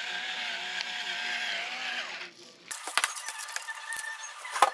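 A steady hum with a slightly wavering pitch for about two seconds, then, after a brief pause, the crinkling and crackling of a plastic stretch bowl cover being pulled over a bowl, with the sharpest crackles near the end.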